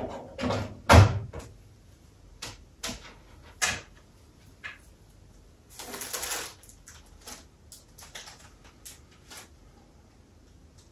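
Handling noise: scattered knocks and clicks of objects being picked up and set down, the loudest a thump about a second in, with a brief rustle about six seconds in.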